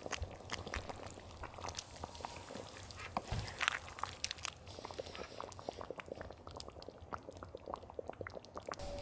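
Spicy braised chicken and baby octopus simmering in a cauldron-lid pan: the thick red sauce bubbling with irregular small pops and crackles, while a wooden spatula stirs through it.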